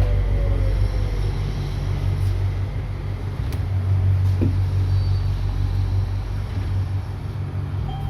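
Light rail train running, a steady low rumble and hum.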